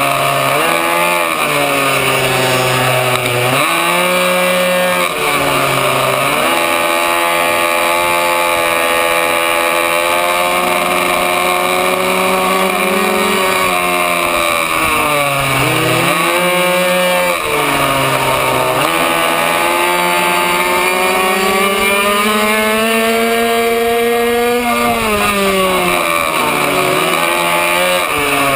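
Two-stroke minibike engine at racing revs, heard from on board: its pitch climbs through each straight and falls sharply whenever the throttle is shut for a corner, six or seven times, with the longest climb of about five seconds near the end.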